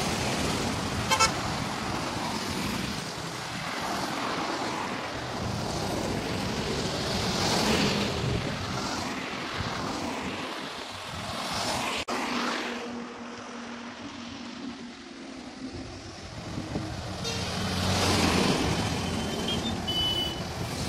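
Heavy trucks and other vehicles passing on a highway, tyre and engine noise swelling and fading as each goes by. Short horn toots sound about a second in and again near the end.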